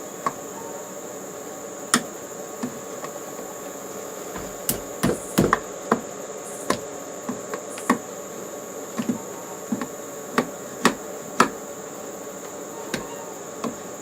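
A hammer knocking, about twenty sharp, irregular strikes with a quick cluster about five seconds in. Under them runs a steady drone of insects.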